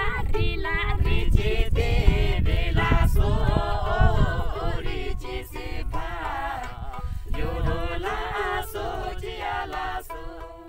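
Background music with voices singing, getting quieter near the end.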